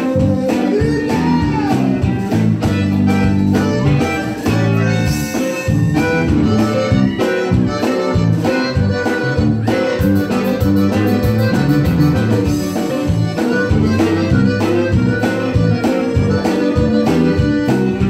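A live band plays: button accordion over electric bass, electric guitar and drum kit, with a steady beat throughout.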